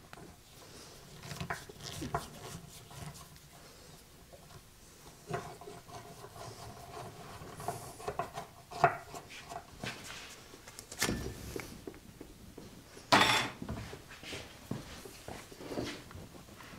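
Hand work on an old cast-iron Craftsman bandsaw: scattered light clicks and knocks as a screwdriver works at the frame and the upper band wheel is handled, with one louder clunk about three-quarters of the way through.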